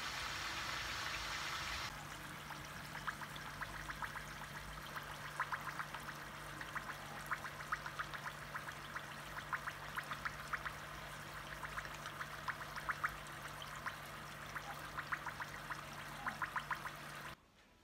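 Fritters deep-frying in hot oil in a pan: a steady sizzle with many small crackling pops of bubbling oil, several a second, as the bora fry to a light reddish-golden colour. The sizzle is denser for the first couple of seconds, then thinner and crisper over a low steady hum, and it cuts off abruptly near the end.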